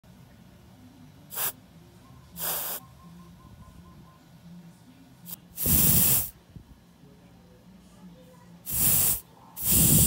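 Air hissing out of a Suzuki Burgman 400 tyre valve stem in about five short bursts as a finger presses the valve core to let the tyre down. The later bursts are longer and louder.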